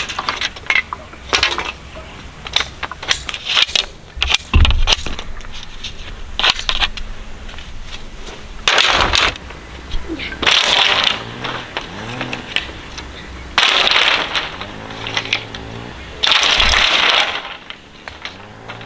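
Bamboo being chopped and split with a machete: a run of sharp knocks and clatters, then several crackling splits of about a second each as the poles tear lengthwise. One heavy thud about four and a half seconds in.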